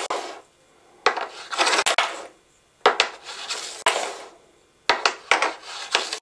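Wooden discs sliding down a wooden sjoelbak (Dutch shuffleboard), three shots about two seconds apart. Each is a sharp clack followed by about a second of rushing, rattling slide.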